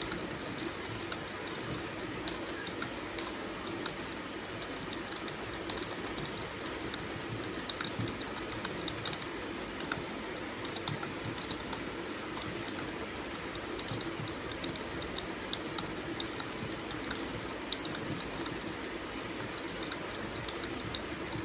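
Fast typing on a computer keyboard: an unbroken stream of key clicks over a steady background hiss.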